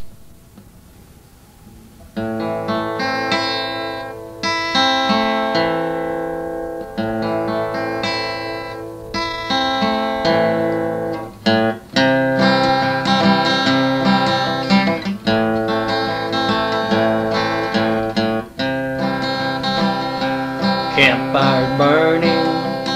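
Instrumental intro of a country song on acoustic guitar: strummed chords start about two seconds in, after a faint hiss, and keep an even strumming rhythm.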